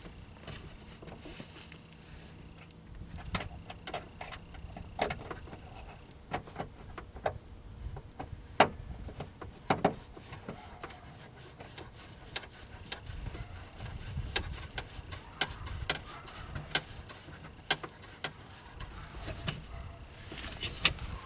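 Scattered clicks, taps and knocks of tools and plastic trim parts being handled while a car door is put back together, with a faint steady hum during the first few seconds.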